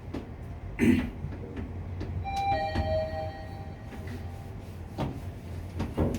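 Elevator arrival chime, a higher tone then a lower one about two seconds in, over the steady low hum of the lift, with a short knock about a second in.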